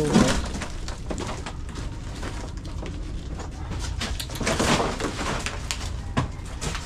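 Birds calling, with a louder rustling spell about two-thirds of the way through and a sharp knock near the end.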